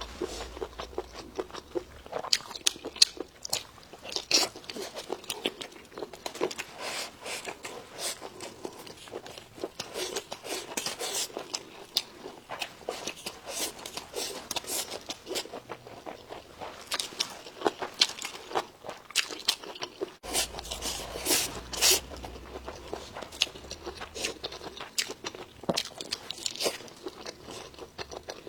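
Close-miked chewing and biting: irregular crunchy, crackling mouth sounds of someone eating.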